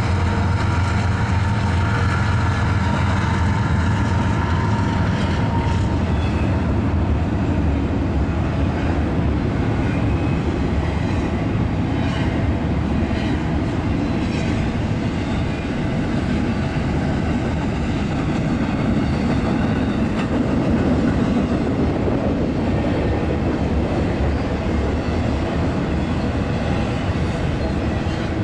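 Canadian Pacific GE diesel locomotives, an ES44AC and an AC4400CW, pass at speed with a steady engine drone in the first few seconds. After that comes the continuous rolling noise of a long train of double-stack container cars going by on the rails.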